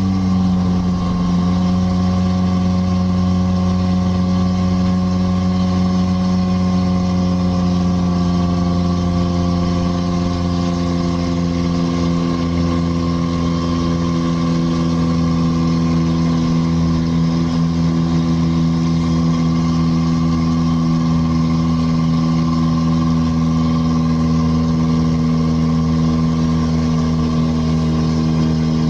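Vehicle engine running steadily under load while driving up a mountain pass road, its note drifting slightly lower over the first ten seconds or so and then holding even.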